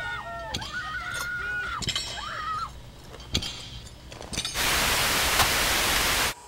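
Several wavering, high-pitched cries, then a few sharp clicks, then a loud burst of TV static hiss about four and a half seconds in that cuts off abruptly near the end.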